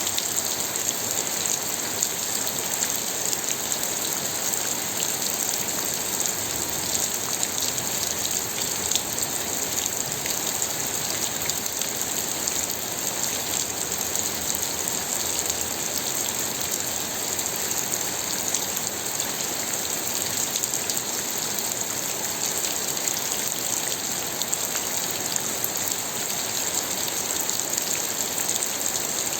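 Steady rain falling, a dense even hiss with many fine drop ticks.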